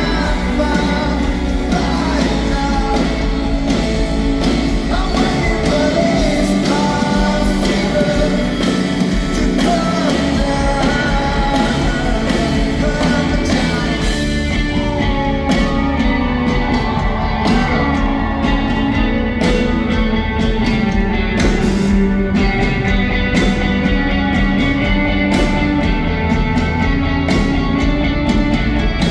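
Live rock band playing a song with lead vocals, loud and steady throughout.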